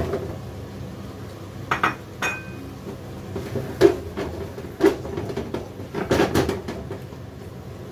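Diced onion and garlic tipped from a ceramic plate into a frying pan of chicken, then a spatula stirring and scraping in the pan: a run of sharp clinks and knocks, one with a short ring about two seconds in, the loudest about four seconds in.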